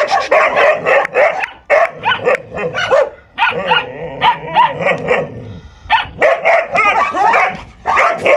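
Dogs barking and yapping in quick runs, a puppy squaring up to an adult dog, with a short lull a little past halfway.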